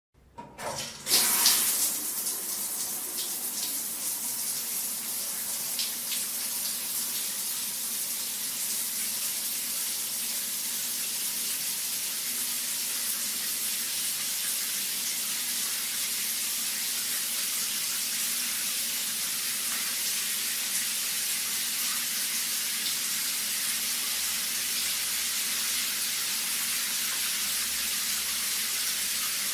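Shower running: the water starts with a loud gush about a second in, then sprays on as a steady hiss.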